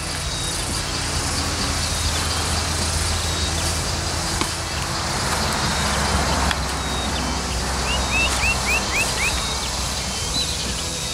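Steady rustling noise of someone moving through dense undergrowth, with a small bird giving a quick run of about six short rising chirps about eight seconds in.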